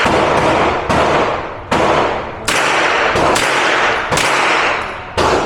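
Gunshots: about eight sharp reports, spaced irregularly from under half a second to about a second apart, each trailing off in a long echoing decay.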